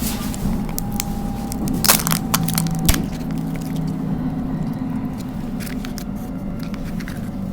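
A Kinder Surprise egg being opened by hand: crinkles and sharp cracks, the two loudest about two and three seconds in, over the steady low rumble of a moving commuter train.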